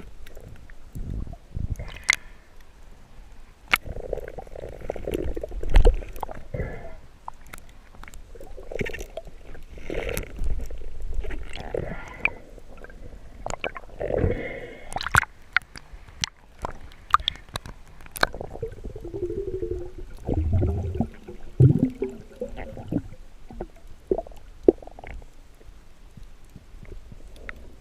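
Muffled water movement from a spearfishing dive: gurgling and sloshing swells with irregular sharp clicks and knocks.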